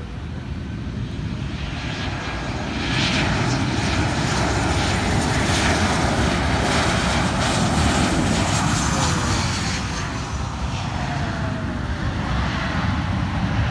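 Jet engines of a Lion Air narrow-body airliner passing low over the runway to land: a steady rumble and hiss that swells about three seconds in, with a faint tone dropping in pitch as it goes by, easing after about ten seconds and rising again near the end.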